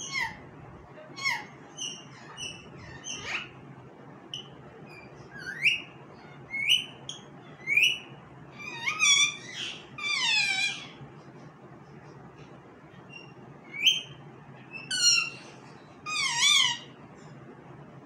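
Indian ringneck parakeet giving an irregular string of short whistled calls and chirps that slide in pitch, with longer wavering calls around the middle and again near the end.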